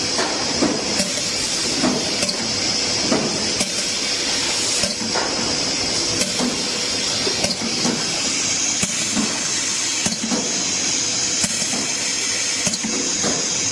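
Steady hiss with faint clicks repeating roughly every second and a quarter.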